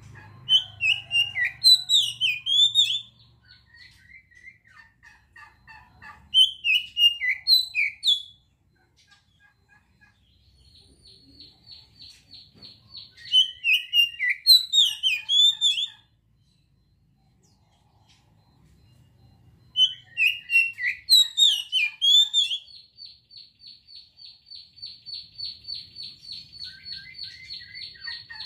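Oriental magpie-robin singing: four loud bursts of quick, varied whistled notes, a few seconds apart. Between them come long trills, one high note repeated fast, the longest filling the last third.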